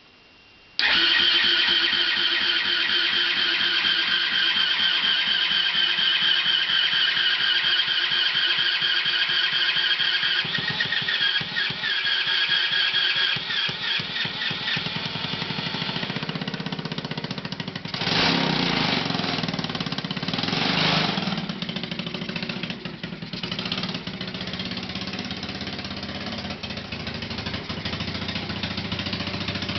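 125cc Lifan four-stroke single-cylinder engine on a lawnmower, electric-started for the first time: it bursts into running about a second in and keeps running steadily, with two brief louder surges later on.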